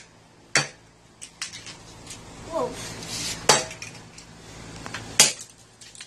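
Hammer blows on the broken plastic and metal pieces of a remote control truck lying on a concrete floor. Three sharp hits about one to two seconds apart, the last the loudest, with lighter clicks of debris in between.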